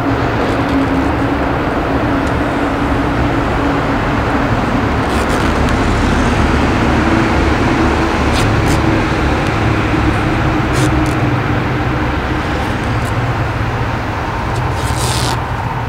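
Steady motor drone with a low hum that drifts slowly up and down in pitch, with a few short sharp clicks and a brief hiss near the end.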